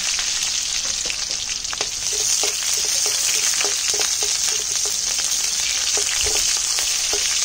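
Crushed garlic and green chillies sizzling in hot oil in a kadai (Indian wok), with frequent short clicks of a spatula stirring against the pan.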